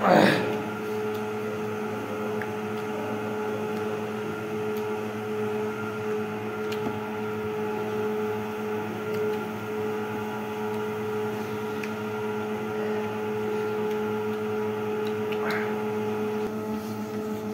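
Steady electrical hum made of several fixed tones that hold unchanged throughout. A short sharp noise comes at the very start, and a fainter brief one about fifteen seconds in.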